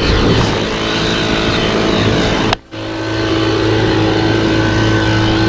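Gas-powered leaf blower running at high speed, a steady engine whine with a strong hum. It breaks off for an instant about two and a half seconds in, then runs on steadily.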